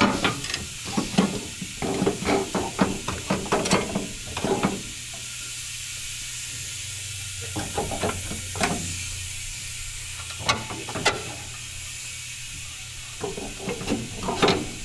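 Irregular clattering, clicks and knocks of metal parts being handled, busy for the first few seconds, sparse in the middle, and picking up again near the end, over a steady low hum.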